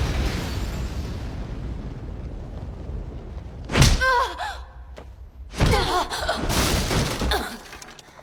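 Animated fight sound effects: a crash whose rumble fades away over about three seconds, then a sharp hit about four seconds in and a longer burst of impacts with strained, wavering cries a couple of seconds later.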